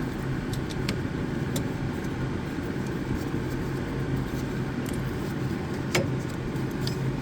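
A steady low mechanical hum, with a few light clicks and taps as the drive belt is worked around the zero-turn mower's tensioner pulley.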